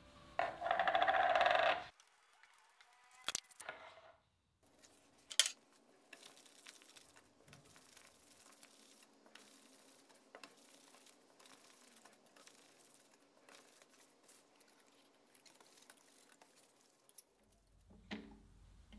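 A sanding block rubbing along the edge of a plywood snare drum shell for about a second and a half, then a few sharp metal clinks of drum lugs and hardware being handled, with faint small clicks afterwards.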